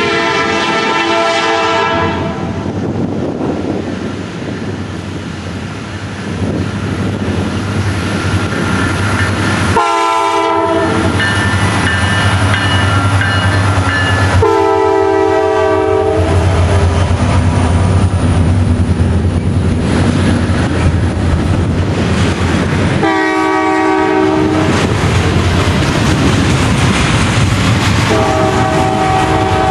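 Union Pacific diesel locomotive leading a double-stack intermodal freight train, sounding its multi-note air horn in five blasts, over the engine rumble and wheels clicking over the rails, which swell from about a quarter of the way in as the train passes close by.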